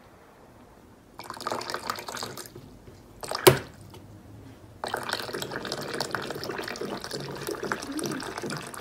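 Water running from a water-dispenser tap as a cat presses the tap's lever with its paw, starting and stopping and then flowing steadily, with one sharp click about midway.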